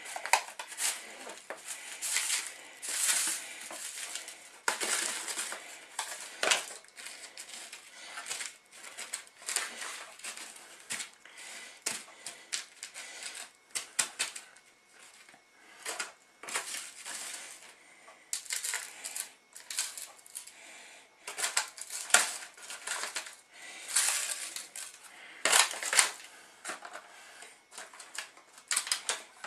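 Thin aluminium foil trays and a plastic tub being handled, crinkling and clattering in irregular bursts, as chicken fillets are worked through crushed tortilla chips for a coating.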